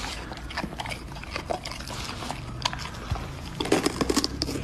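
A golden retriever biting and chewing a raw green bell pepper: wet mouth sounds and crisp crunches, with a quick run of crunches near the end.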